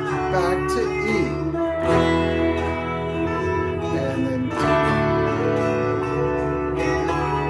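Fender Telecaster electric guitar strumming chords, with a fresh chord struck every two to three seconds: the E, D, A and G changes of the song being taught.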